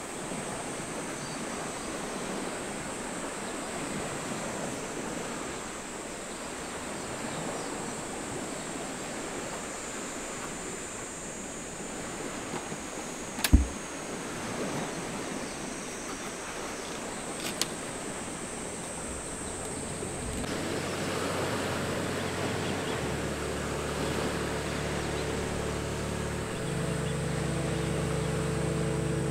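Lakeside ambience: an even wash of small lake waves and wind, with one sharp knock about halfway through and a fainter click a few seconds later. Soft music with sustained low chords comes in for the last third.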